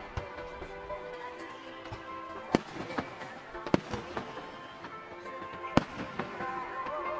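Aerial firework shells bursting in several sharp bangs, the loudest about two and a half and nearly six seconds in, over steady music.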